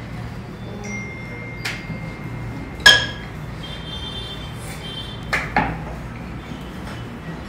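Steel kitchenware clinking a few times as utensils are knocked against one another, each strike leaving a short metallic ring. The loudest clink comes about three seconds in, and two quick ones follow later.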